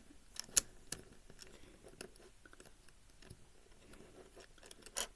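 Plastic pieces of a 5x5 speed cube clicking and tapping as they are pressed into place by hand. There is one sharper click about half a second in and a few more near the end.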